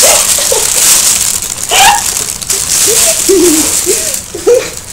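A plastic carrier bag rustling and crinkling close to the microphone, with short muffled giggles from a full mouth over it.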